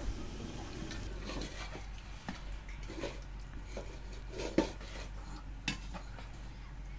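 Scattered light clinks and knocks of cooking utensils and pots being handled, with the sharpest knocks about four and a half and five and a half seconds in.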